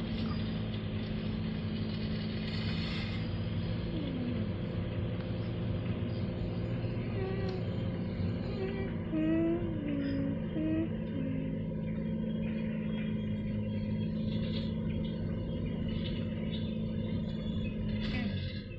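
Car engine running steadily while pulling uphill, heard from inside the cabin with road noise.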